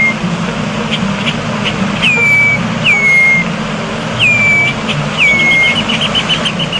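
A bird calling: four short whistles, each dropping sharply in pitch and then holding, about a second apart, followed near the end by a fast run of short chips, over a steady low rumble.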